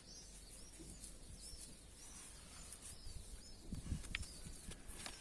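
Faint, repeated chirping of small birds: short rising-and-falling chirps about once a second, with a few soft low knocks about two thirds of the way in.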